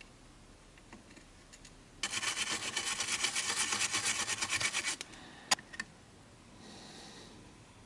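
Toothbrush bristles scrubbing a circuit board in rapid back-and-forth strokes for about three seconds, cleaning off residue from leaked electrolytic capacitors. Two sharp clicks follow shortly after.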